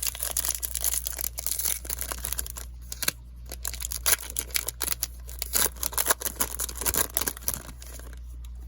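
Foil wrapper of a Topps Chrome baseball card pack being torn open and crinkled: a dense run of sharp crackles that dies down near the end.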